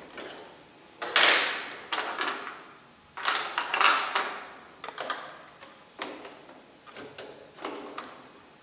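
Heavy jacket fabric rustling and sliding as it is handled, loudest about a second in and again around three to four seconds in, followed by a string of small clicks and knocks, about one a second, as the sewing machine is handled. The machine's motor is not running.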